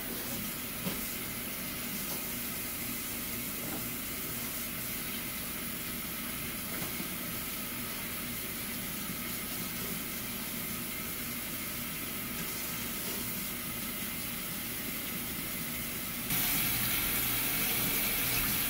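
Kitchen faucet running into a stainless steel sink: a steady rushing hiss of water that gets louder about 16 seconds in, as hands are washed under the stream.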